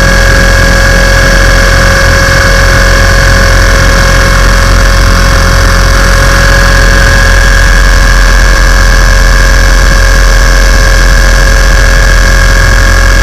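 Onboard sound of a Tarot 450 electric RC helicopter: the brushless motor, main gear and rotor head give a loud, steady high whine over a buzzing rumble, the pitch held constant.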